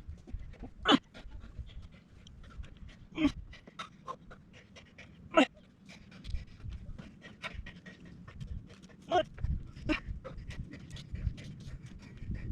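Rapid panting breaths, with several louder sharp breaths about one, three, five and nine seconds in.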